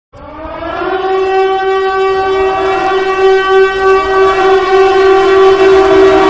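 Emergency alert alarm tone: a loud, horn-like sustained tone that slides up in pitch and swells over the first second, then holds steady.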